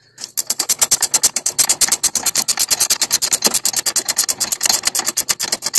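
A ratchet clicking rapidly and evenly, about a dozen clicks a second, as the nut on the Corvair's rear strut rod eccentric adjusting bolt is run down once the adjustment is set. The wrench on the bolt head holds it from turning.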